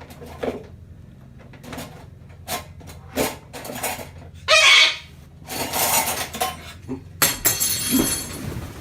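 Dishes and cutlery clinking and clattering in a run of sharp, irregular knocks, busier near the end, over a steady low hum.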